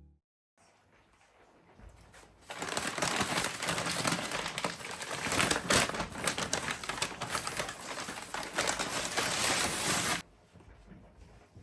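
Crinkling and rustling of something handled, dense with small crackles, starting a couple of seconds in and cutting off suddenly near the end.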